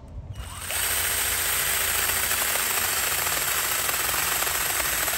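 Dinshare 20-volt battery mini chainsaw starting up about half a second in and running steadily as its chain cuts through a small tree branch.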